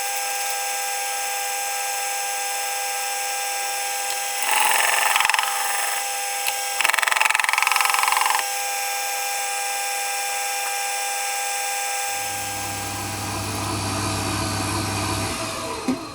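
A Jet wet sharpening machine running with a steady whine while a knife blade is stropped against it in two louder rasping passes, smoothing the freshly ground edge. A low hum joins later, and the machine winds down near the end.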